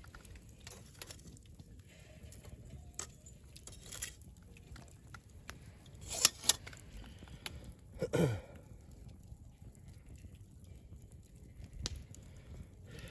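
Wood campfire crackling, with scattered sharp pops; the two loudest come close together about six seconds in. Around eight seconds in, a brief sound slides down in pitch.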